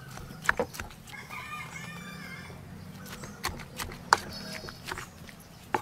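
A rooster crows once, starting about a second in and lasting over a second. Sharp knocks of a wooden spoon against the mortar come as shredded green papaya salad is tossed, the loudest about four seconds in.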